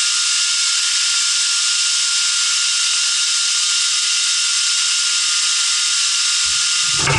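A 2" x 27" belt grinder running free, its abrasive belt giving a steady hiss with a high whine. A few low knocks come in near the end.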